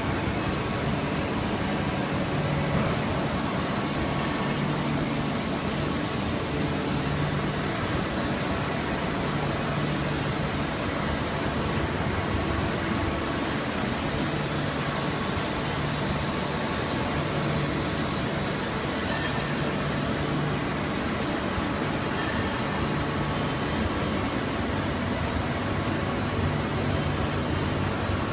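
Steady machine-shop background noise: an even hiss with a low hum that swells and fades every few seconds, typical of running shop equipment or ventilation.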